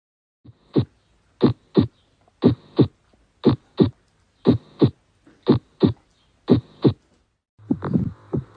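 Heart sounds through a stethoscope: seven double lub-dub beats, about one a second, with clean silence between them. About a second before the end, a second heart recording starts, with a steady hum running between quicker beats.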